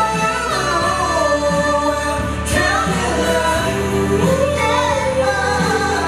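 K-pop song performed live: a male vocalist singing into a microphone over a band, with electric bass underneath.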